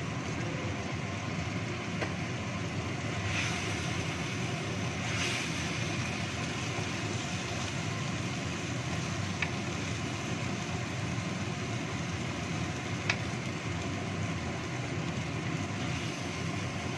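Pieces of shark frying in red spice paste in a wok: a steady sizzling hiss, with a few light knocks of a wooden spatula against the pan as it is stirred.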